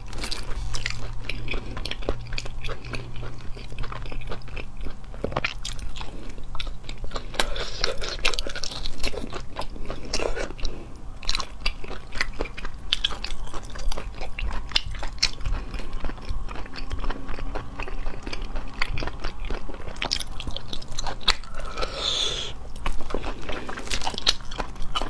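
Close-miked chewing and biting of cooked octopus tentacles in spicy sauce, with many small mouth clicks and smacks.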